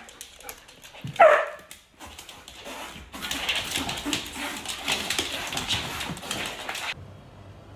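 A dog gives a single short call, falling in pitch, about a second in. From about three seconds a dog and a cat scuffle in play, a stretch of noisy rustling and scrabbling that stops abruptly near the end.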